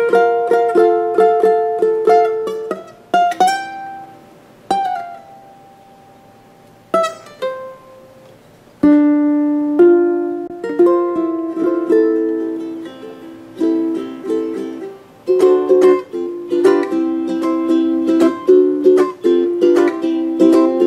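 PONO MPT-E tenor ukulele played solo: plucked notes and ringing chords, thinning to a few single notes in a quieter stretch from about five to nine seconds in, then a steadier run of repeated picked chords.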